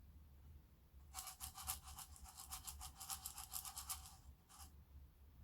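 A small container being shaken back and forth with a mystery household material rattling inside. It makes a fast, even run of short rattles, about six or seven a second, for about three seconds, then one more shake just after.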